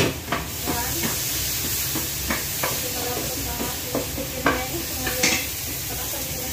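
Chicken wings sizzling in hot oil in a frying pan, stirred with a wooden spatula that knocks and scrapes against the pan about a dozen times. There is a sharp clack at the very start.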